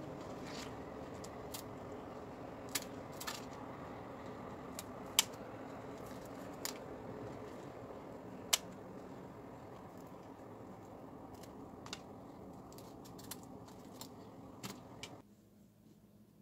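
Sharp separate clicks of kitchen scissors and pieces knocking on a wooden plate as bungeoppang (fish-shaped pastries) are cut up and handled, the loudest at about five and eight and a half seconds in. Under them is a steady low hum that cuts off about a second before the end.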